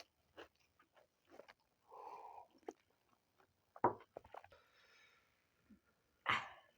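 Close-miked eating of roti and vegetable curry: chewing with small wet mouth clicks, and two louder sudden bites or crunches, one about four seconds in and one near the end.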